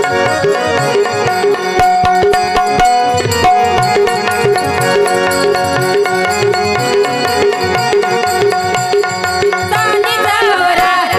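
Instrumental interlude of a Marathi devotional song: tabla strokes in a steady rhythm under a sustained melodic instrument holding steady tones. A singing voice comes in about ten seconds in.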